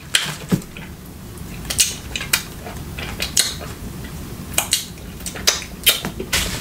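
Scattered sharp clicks and clinks of utensils and food containers being handled, about a dozen, irregularly spaced.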